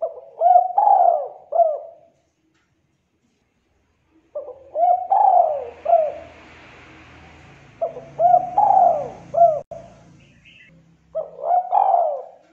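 Spotted dove cooing, the song type fanciers call 'culhu kuk': four phrases about three and a half seconds apart, each a quick run of several coos.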